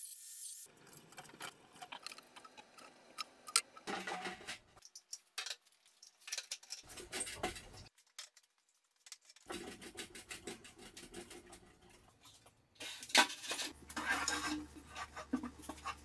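Scattered clicks, knocks and rubbing from wide wooden boards being handled and glue being squeezed from a bottle along the joint. The sounds come in short patches that start and stop abruptly. Near the end there is one sharp, loud knock of wood on wood.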